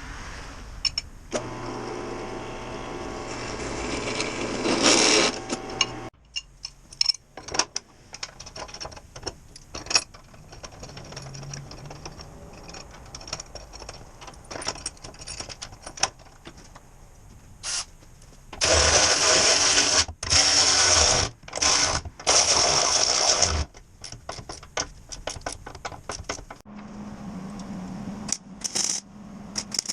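Shop tool work on metal: a power tool runs steadily for about five seconds, then scattered clicks and knocks of parts being handled, and four or five loud harsh bursts of about a second each from a noisy tool.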